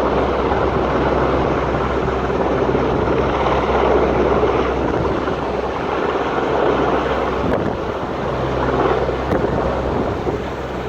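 Rescue helicopter's rotor and engine giving a steady low drone, mixed with heavy wind buffeting the microphone.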